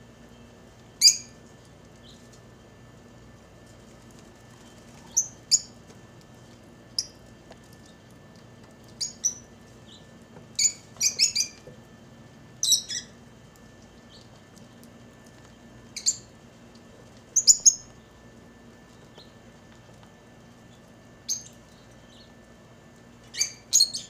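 Lovebirds giving short, sharp, high-pitched chirps, some single and some in quick pairs or clusters, spaced irregularly a second or several apart, over a faint steady hum.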